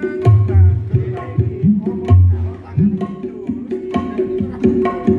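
Loud music played through a PA sound system of tweeters and 10-, 15- and 18-inch speakers for a sound check. The beat is a hand drum with deep strokes that bend in pitch, over a repeating melody.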